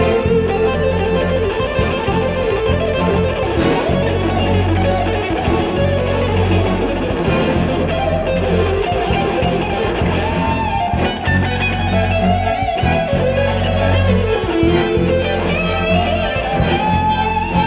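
Electric guitar solo in a rock arrangement, its lead notes bending and gliding, over low sustained bass notes and chamber orchestra accompaniment.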